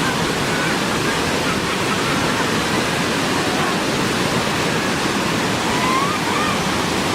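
Waterfall on Kulen Mountain pouring, a steady, even rush of falling water.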